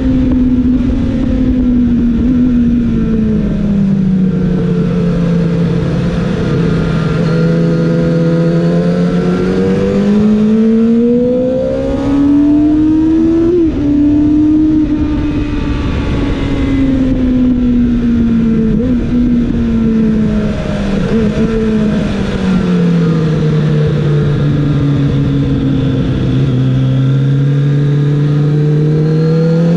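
Kawasaki ZX-7R's inline-four engine heard on board at speed, over a steady rush of wind noise. The engine note sinks over the first few seconds and holds low, climbs to a peak around the middle, then slowly falls again and begins to climb near the end.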